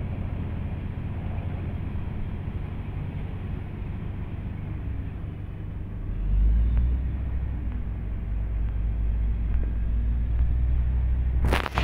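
Large wheel loader's diesel engine running, with a steady low drone. About six seconds in the engine note deepens and grows louder as the machine works its bucket into the stockpile. A sharp click comes near the end.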